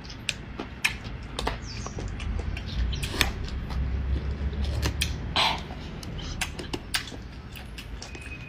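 Close-miked eating of a spicy dish: irregular crisp crunches and sharp clicks as the food is bitten and chewed, over a low steady hum.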